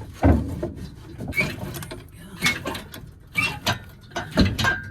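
Irregular knocks, clunks and creaks of an engine and transmission hanging from an engine hoist as they are worked down into the engine bay, with a short squeak near the end.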